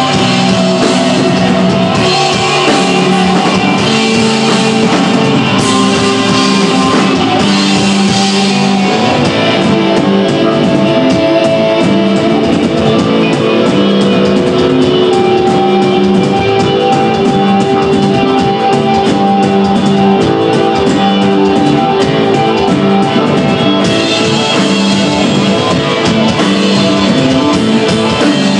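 Instrumental desert rock band playing live and loud: electric guitar, bass and drum kit in a long, steady, droning passage. The bright top end drops back for a stretch in the middle.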